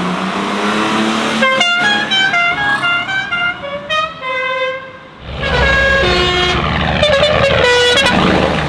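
Musical car horns playing quick tunes, note after note in changing pitches, with a short pause about five seconds in; a low rumble sits under the second tune.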